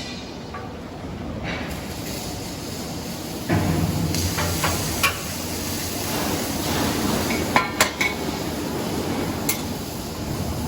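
Baler feed conveyor running with a steady mechanical noise, punctuated by scattered metallic clanks and knocks. The running gets louder and heavier about three and a half seconds in.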